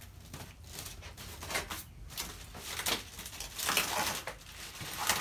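Packaging being handled: a series of short rustles and scrapes of plastic wrap and foam packing pieces, coming more often and louder in the second half.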